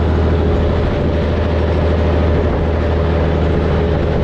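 Volvo N12 truck's diesel engine running steadily under way through a loud exhaust, a constant low drone mixed with wind rush, heard from a seat outside on the moving truck.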